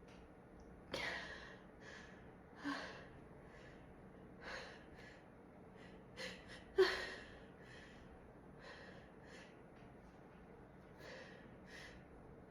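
A woman breathing in sharply and sniffing over and over as she fights a building urge to sneeze: a series of short, breathy gasps, the loudest about seven seconds in.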